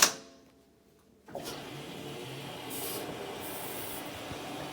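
A sharp click, then about a second in a GE front-loading washing machine starts filling: its water inlet valve opens and water sprays steadily into the machine, with a brighter hiss coming and going.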